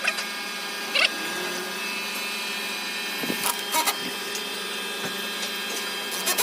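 Handheld power tool running at a steady speed while carving wood, with a steady whine made of several pitches. A few short scrapes or knocks come through, about a second in and again past the middle.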